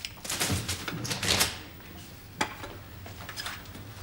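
Scattered light clicks and rustles of Christmas decorations (paper chains and tinsel) being taken down by a man on a wooden stepladder, with one sharper click about two and a half seconds in.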